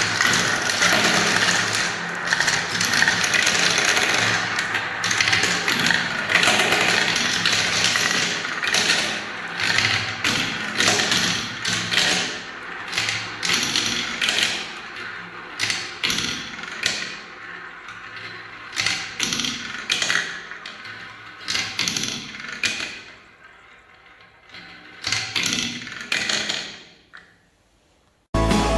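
Many small balls rolling and clattering down a spiral marble-run track, a dense stream of clicks and knocks that thins out to scattered taps as the last balls finish, dying away almost to silence near the end.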